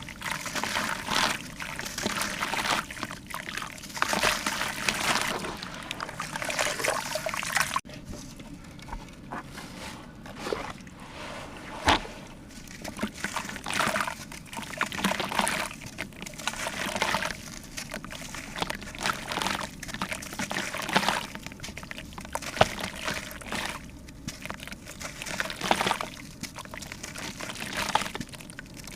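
Water splashing and pouring in irregular surges.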